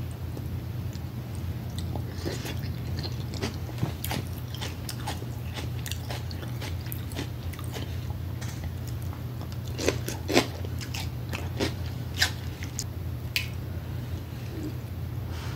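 Close-miked eating of a seafood boil: wet chewing and mouth clicks, with a few louder crunchy bites about ten to twelve seconds in, over a steady low hum.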